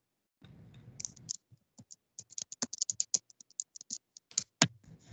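Computer keyboard typing: a quick, irregular run of key clicks, with a few louder clicks near the end.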